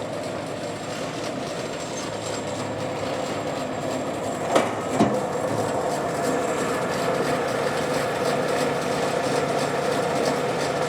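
Delta Model 20 vertical band saw running steadily, its motor and blade giving a constant hum, with two sharp knocks about halfway through.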